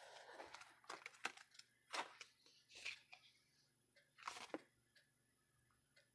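Stiff art cards being handled: a soft rustle, then a handful of faint, sharp clicks and taps as a card is slid out of the deck and turned over. The loudest clicks come about two seconds in and about four and a half seconds in.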